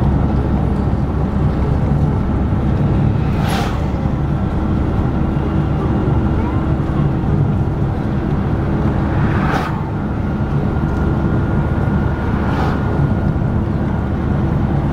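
Car travelling on a road, heard from inside the cabin: a steady low rumble of engine and tyre noise with a faint whine, and three short knocks spread through it.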